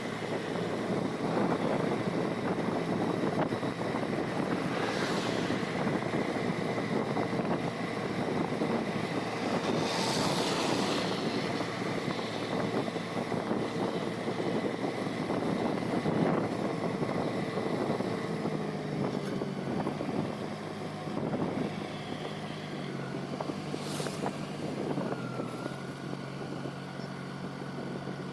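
Motor vehicle running along a road, with steady road and wind noise; a low engine hum comes through more clearly and drops in pitch in the second half.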